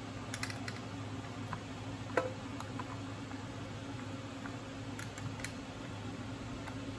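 Scattered light clicks and taps of hand tools and parts being handled while working on a motorcycle battery's terminals, one sharper click about two seconds in, over a steady low hum.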